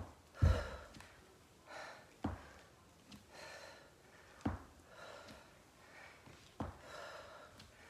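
A person doing reverse lunges with a knee drive: a dull thump about every two seconds as a foot lands with each rep, four in all, with short breaths out between them.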